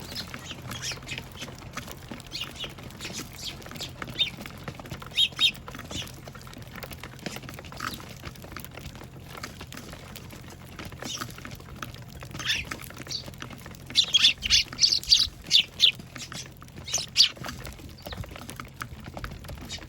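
Eurasian tree sparrows chirping in short, scattered calls, with a loud run of rapid chirps about two-thirds of the way through.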